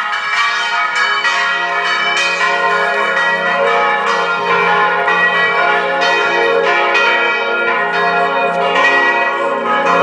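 Church bells ringing, a peal of overlapping strikes about once a second with the tones ringing on into each other.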